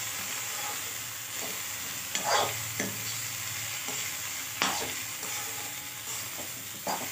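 Metal spatula stirring chopped drumstick (moringa) pods and potato in a metal kadhai, the vegetables dry-frying with a soft sizzle since no water is used. Three louder scrapes of the spatula against the pan.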